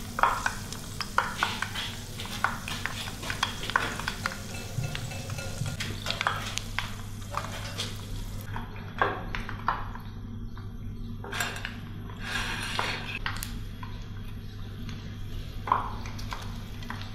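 Donuts deep-frying in a pan of hot oil, a steady sizzle and bubbling, with metal tongs clicking and scraping against the pan as they are turned.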